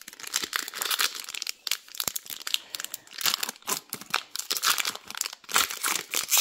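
Foil hockey card pack wrapper crinkling and tearing as it is ripped open by hand: a dense, irregular run of crackles and rustles, loudest near the end.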